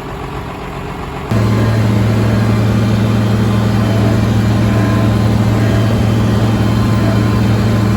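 Farmall 1206 tractor's six-cylinder turbo-diesel engine running; about a second in it jumps abruptly to a much louder, steady drone that holds.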